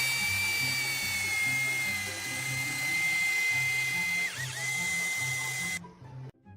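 A power tool's electric motor running at high speed with a steady high whine. Its pitch dips briefly about four and a half seconds in and recovers, then it cuts off suddenly near the end, with background music underneath.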